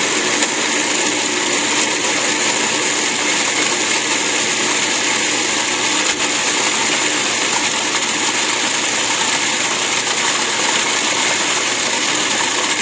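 Cuisinart Pro Classic food processor running steadily and loudly, its blade pureeing a bowl of roasted eggplant, red pepper, onion and garlic.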